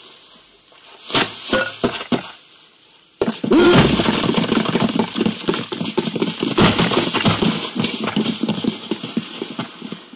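Playback of layered foley sound effects for a film fight scene: a few separate sharp knocks, then, about three seconds in, a sudden dense clatter of many quick impacts and scuffling that keeps going.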